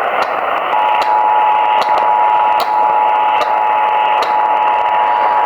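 Emergency Alert System two-tone attention signal, two steady tones sounding together, starting about a second in. It plays over loud radio static with a faint click repeating a little more than once a second, and marks the start of a new alert.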